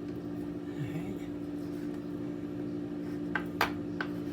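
A steady low hum throughout, with three or four sharp taps near the end from a knife knocking on a cutting board while fat is trimmed off raw chicken breast.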